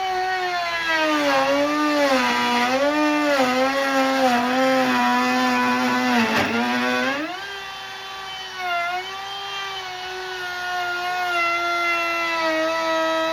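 Small electric power tool motor running with a high whine, its pitch sagging and recovering over and over as it is pressed into the work; about six seconds in it dips sharply, then runs higher and steadier, as if unloaded.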